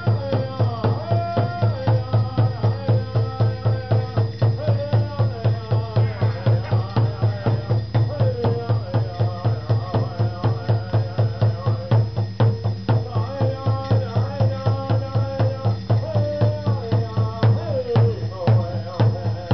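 Native American hoop dance music: a drum beating a steady, even beat with chanted singing over it.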